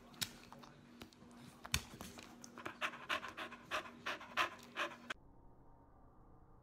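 Dog panting in quick breaths, about three a second, which cut off suddenly about five seconds in.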